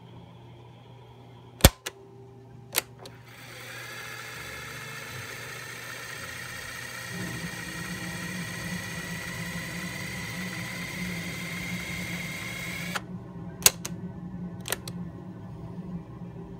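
Piano-key buttons on a Channel Master 6305A portable cassette recorder clack a few times. The motor and tape transport then run for about ten seconds with a hiss and a whine that slowly rises in pitch. It stops abruptly with a clack, and two more key clacks follow.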